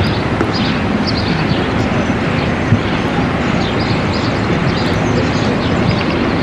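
ÖBB class 2095 narrow-gauge diesel-hydraulic locomotive running steadily as it hauls passenger coaches slowly toward the camera, with short high chirps or squeaks over the engine noise throughout.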